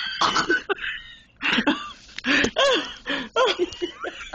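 A person in a coughing fit: a run of short, gasping coughs that leaves them out of breath.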